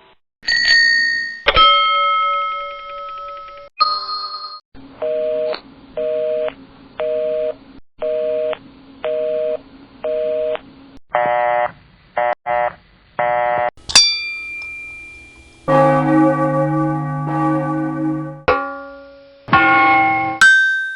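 A series of different bell sound effects one after another. It opens with single struck dings that ring on. Next comes a bell ringing in six even bursts about a second apart, then a few shorter quick rings, then a sharp ding with a long ring about two-thirds of the way in. A longer wavering ring follows, and more dings come near the end.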